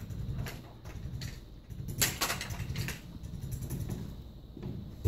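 Chiropractic adjusting table clacking and shifting under a pelvic adjustment, with a rattling clatter of clicks about two seconds in and a thump at the end.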